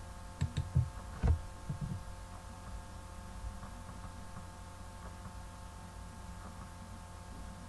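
Steady low electrical hum of the recording setup, with a few short soft knocks in the first second and a half.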